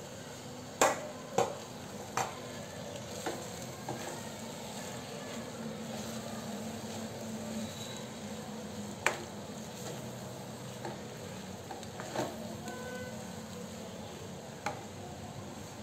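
Wooden spatula stirring and tossing boiled rice into spiced masala in a kadai over a low flame, with a faint steady sizzle. Sharp knocks of the spatula against the pan come several times in the first few seconds and then now and then.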